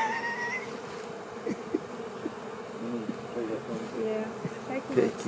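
Honey bees buzzing in a steady hum over an opened hive, with a brief higher whine near the start.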